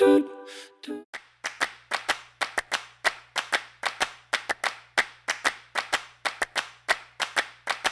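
Rhythmic hand clapping, sharp even claps at about four a second over a faint steady low hum, following a short hummed vocal phrase that ends about a second in.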